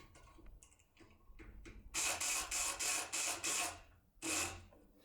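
Multipick Kronos electric pick gun running in short buzzing bursts as it works a lock cylinder: a few faint clicks, then about four bursts in a row and one more brief burst near the end.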